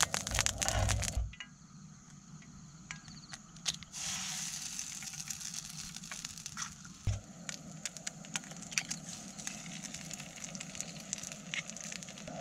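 Eggs frying in hot oil in a pan on a portable gas stove: steady crackling and spitting. The sizzle swells about four seconds in as an egg drops into the oil, and there is a single knock about three seconds later.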